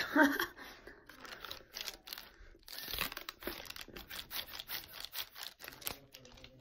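Clear plastic wrapper held between the lips crinkling and crackling in a rapid run of small, irregular crackles.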